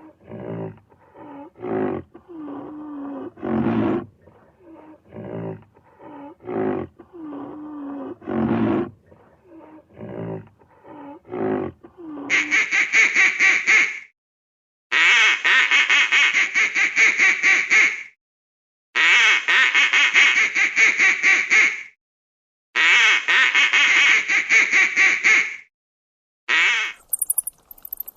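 Duck quacking in four long runs of rapid, evenly repeated quacks with short gaps, then one short run near the end. These are preceded by about twelve seconds of slower, lower-pitched animal calls, some gliding in pitch.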